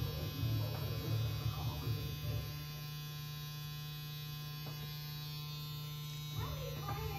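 Tattoo machine buzzing steadily as the needle works ink into skin.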